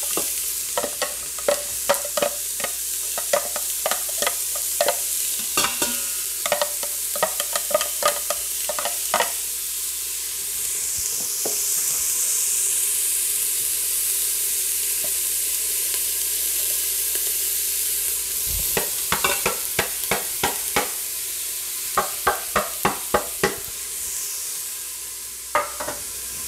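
Diced onion sizzling in hot olive oil in the stainless inner pot of a Mealthy Multipot electric cooker on sauté, a steady hiss. Over it, sharp taps and scrapes of a plastic spatula against a plastic container and the pot rim as the onion is scraped in, thick over the first nine seconds or so, with a few more short runs of taps later on.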